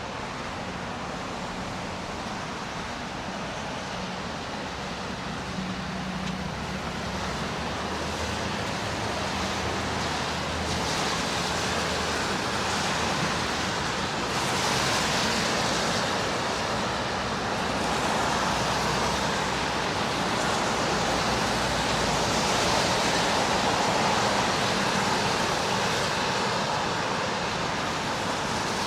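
City street traffic: a steady wash of vehicle engines and tyre hiss, growing louder about ten seconds in as traffic passes close.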